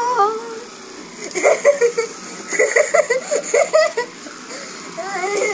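A young child giggling and laughing in quick, repeated bursts.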